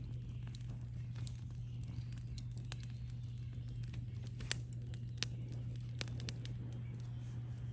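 Wood campfire crackling, with irregular sharp pops, the strongest about halfway through, over a steady low hum.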